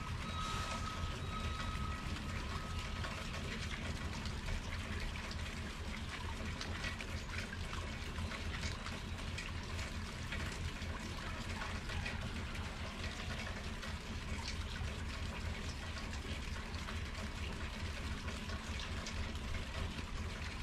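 Rain falling steadily, with many small drop hits pattering throughout.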